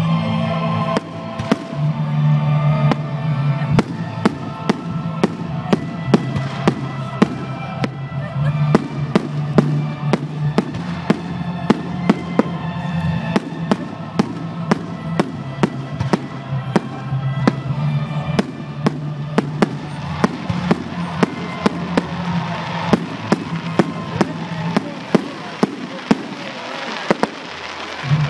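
Fireworks display with music: aerial shells bursting in a rapid string of sharp bangs, roughly one or two a second, over a music track. Crackling builds over the last several seconds.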